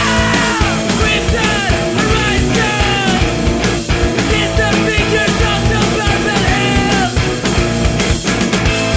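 Rock music played by a full band at a loud, steady level, with a regular drum beat and a melodic line over it.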